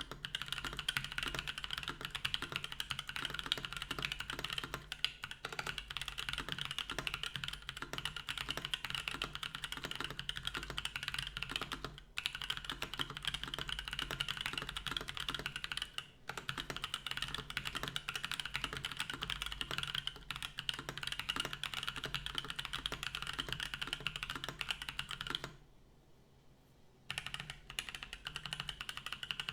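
Fast, continuous typing on a Matrix AbelX V2 custom mechanical keyboard with lubed Gazzew U4T tactile switches, an aluminium plate and CRP keycaps: a dense run of key clacks. It breaks off briefly twice, and there is a longer pause near the end.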